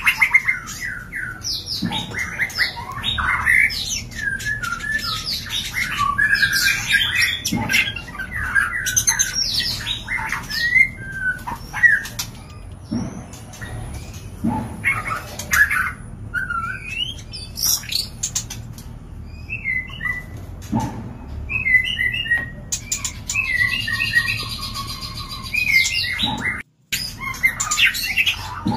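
White-rumped shamas calling in a breeding pair's enclosure: a dense run of quick, varied chirps, whistled glides and squawks, the excited sound of shamas mating. A few short knocks come now and then, and the sound cuts out for a moment near the end.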